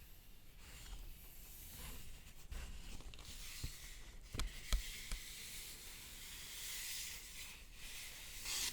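Paper being rubbed and rustled: a soft, hissing rustle with a few sharp crackles about halfway through.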